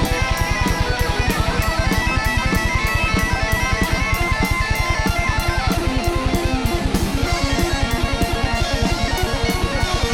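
Rock band music: electric guitars over a drum kit keeping a fast, steady beat.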